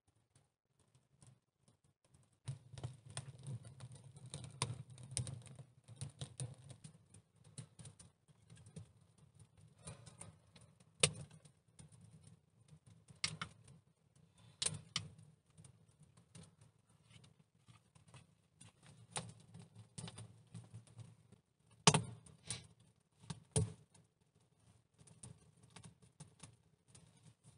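Wood fire catching in a bucket stove: irregular crackling and sharp clicks, starting a couple of seconds in, with a few louder snaps.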